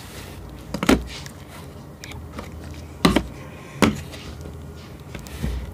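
Three sharp thumps about a second in, about three seconds in and just under a second after that, then a quieter one near the end, with faint rustling between them.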